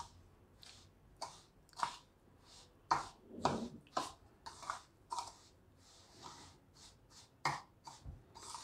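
Spoon stirring coarse, oily pickle masala with red chilli powder in a stainless steel bowl: a series of short, irregular scrapes and rustles, each stroke scraping against the bowl.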